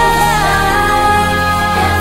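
Eurodance pop song with a woman singing a long held note over synths and a steady bass. The note steps down about half a second in.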